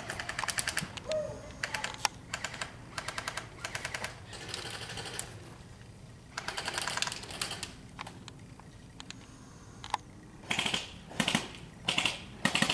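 Airsoft electric guns firing in full-auto bursts: quick strings of rapid, evenly spaced mechanical clicks, about seven bursts in the first half, with a few shorter noisy bursts near the end.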